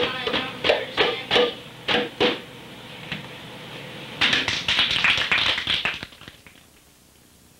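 Two small hand drums struck by hand: sharp, ringing hits about three a second for the first couple of seconds, a pause with a single hit, then a quicker flurry of hits a little past halfway before the sound fades away.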